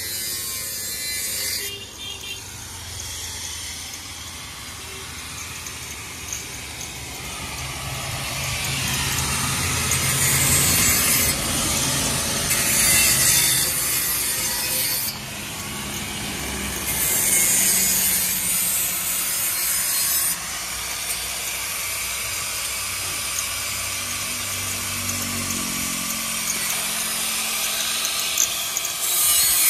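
Electric angle grinder working a steel exhaust silencer pipe, a harsh grinding hiss that surges and eases in stretches of a few seconds as the disc is pressed on and lifted.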